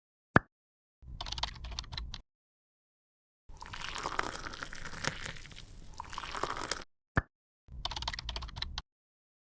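Slime being squished and pressed, with rapid small crackles and pops, in three stretches separated by dead silence. A single sharp click comes just before the first stretch and again before the last.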